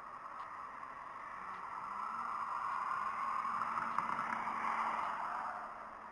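A vehicle passing by: its noise swells over about three seconds, peaks, then fades away, with a low steady engine hum underneath.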